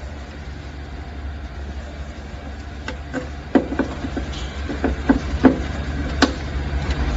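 Low, steady bass rumble from speakers driven by a DXB BL23000 power amplifier with its gain knob turned far down, growing slowly louder toward the end. A handful of sharp clicks and knocks fall in the middle.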